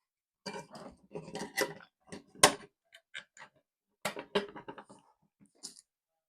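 Irregular clicks, taps and clatter of small hard objects being handled, such as tools and electrical fittings on a work surface. The loudest is a sharp knock about two and a half seconds in.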